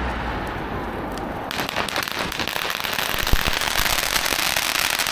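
A string of firecrackers goes off about a second and a half in: a rapid, continuous crackle of many small bangs, with one louder bang a little past the middle.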